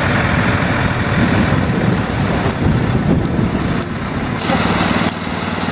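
Concrete mixer truck running at a steady rumble, its engine driving the turning drum as it discharges concrete down the chute.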